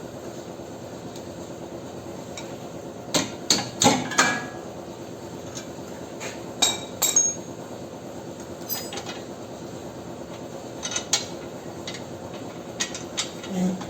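Metal tools and suspension parts knocking and clinking in short clusters of sharp taps while a car's strut assembly is being taken apart, over a steady low hum.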